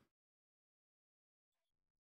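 Silence: the audio drops out entirely.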